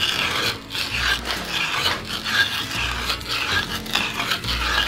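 A wood-threading die box cutting threads onto a soft maple limb as it is twisted by hand: a rough scraping rasp in uneven strokes.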